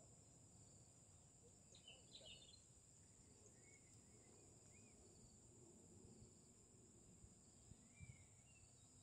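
Faint outdoor ambience: a steady high insect drone of crickets, with a few short bird chirps about two, four and eight seconds in.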